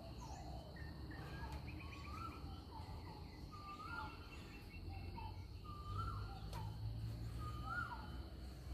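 Morning birdsong: one bird repeats a short rising whistle that drops off at the end, about every two seconds, with fainter chirps from other birds. Underneath are a steady high insect hum and a low background rumble.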